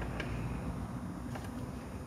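Two light clicks from a socket tool on the oil drain plug, about a second apart, over a low steady rumble.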